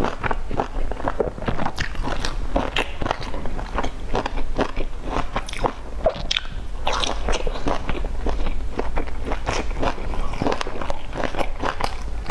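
Close-miked mouth sounds of eating boiled dumplings dipped in sauce: biting into the soft dumpling and chewing, with wet smacks and clicks several times a second.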